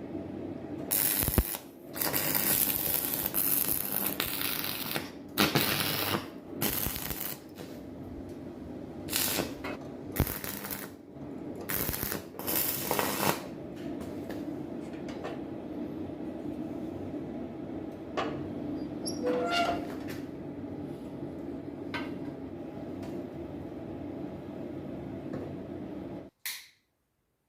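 Stick welding: several bursts of crackling, hissing arc, one to three seconds each, with sharp metal clinks between and a steady low hum underneath. Near the end the sound cuts off abruptly.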